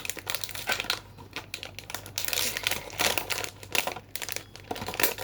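Blind-box packaging crinkling and rustling as it is handled, in irregular bursts with small clicks.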